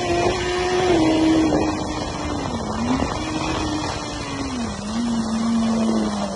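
BMW superbike's inline-four engine running at high speed over wind rush. Its note falls as the throttle is eased, dips and picks up again twice, and settles lower after a shift down into second gear near the end.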